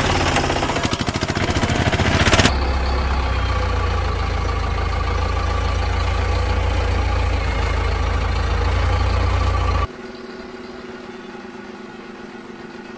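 Vehicle engine sound effects: a fast rattling engine for the first couple of seconds, then a steady deep idling rumble, switching abruptly about ten seconds in to a quieter, higher-pitched engine hum.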